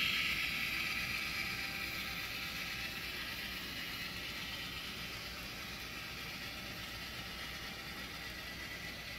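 Model freight cars rolling past on the layout track: the wheels keep up a steady, fine clicking rattle on the rails. The sound grows quieter over the first couple of seconds, then holds steady.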